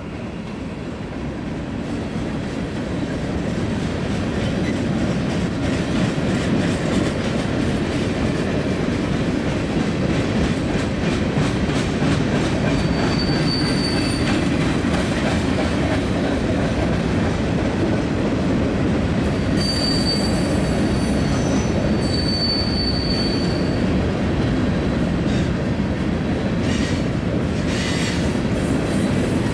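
Freight train rolling past, a steady rumble of wheels on rail with fast clicking over the rail joints, growing louder over the first few seconds. There are a few brief high wheel squeals from about halfway through.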